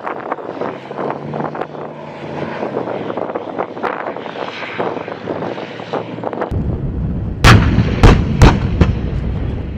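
Heavy guns firing in a live-fire exercise: scattered distant cracks of gunfire, then a low rumble comes in and three loud, sharp blasts follow in quick succession, all within about a second.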